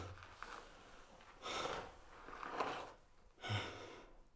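A man breathing heavily in ragged gasps, three loud breaths about a second apart.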